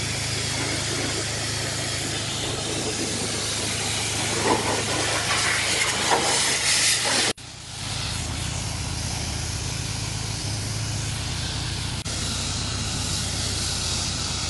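Self-service car wash pressure-washer wand spraying a high-pressure water jet: a steady hiss with a steady low hum underneath. The sound breaks off sharply about seven seconds in and resumes at once.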